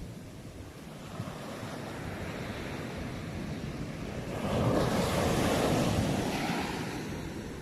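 Sea waves washing onto a shore. The surf swells about halfway through, is loudest for a couple of seconds, then ebbs away.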